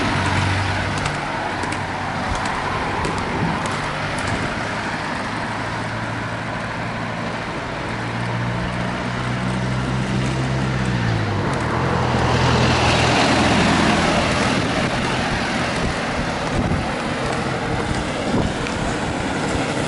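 Road traffic heard over a steady rush of roller-skate wheels rolling on asphalt. A motor vehicle's engine goes by, its pitch dropping as it passes about eleven seconds in, and another engine is heard briefly at the start and again around thirteen seconds.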